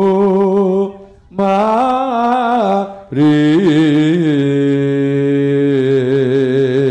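A man chanting Javanese verse solo in long, wavering held notes. There are three phrases; the last is held fairly steady for about four seconds.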